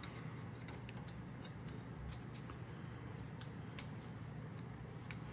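Faint scattered clicks and light metallic taps of a parking brake lever and return spring being worked onto the brake shoe by hand, over a steady low hum.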